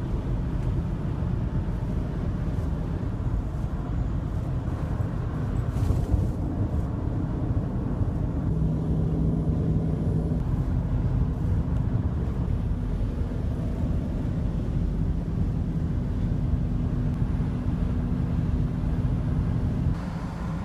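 Steady road and engine noise inside the cab of a 2009 Chevy one-ton flatbed dump truck cruising at highway speed, with a low, even engine hum.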